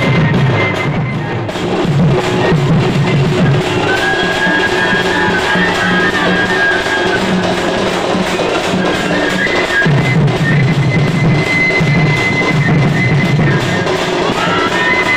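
Sambalpuri folk music: fast drumming on barrel drums, with a high, sustained melody line gliding above it. The deep drum strokes drop back in the middle and come in strongly again about ten seconds in.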